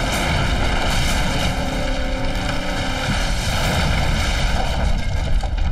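Sound effect of a wooden tower collapsing: a loud, continuous rumbling roar with a deep low rumble.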